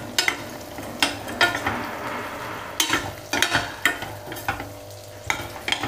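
A metal ladle repeatedly scraping and knocking against a stainless-steel pan as black chickpeas and diced potatoes are stirred and fried in oil, with a steady sizzle underneath.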